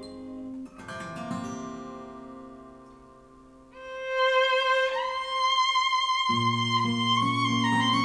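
Recorded ballad music played back through small bookshelf hi-fi speakers: picked guitar notes die away, then about four seconds in a long held note with vibrato on the word "love" rises over strings, and a low bass line joins a little past six seconds.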